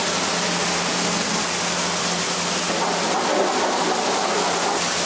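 Pressure-washer spray gun misting water over a car's engine bay and the underside of the hood: a steady hiss of spray, with a steady low hum underneath.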